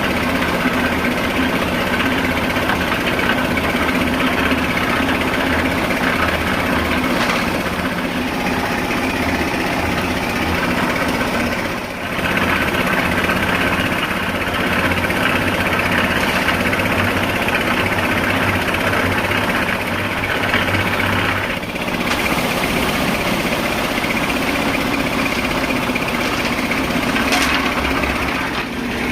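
Engine of a concrete lift (construction hoist) machine running steadily, dipping briefly about twelve seconds in and again near twenty-two seconds.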